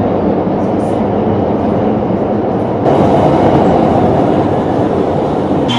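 Metro train running: a steady rumble and rush that grows louder and hissier about three seconds in.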